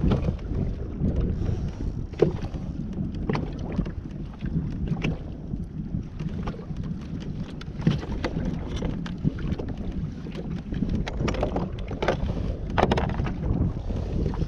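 Wind buffeting the microphone on a fishing kayak at sea, with scattered irregular knocks and taps, more of them near the end.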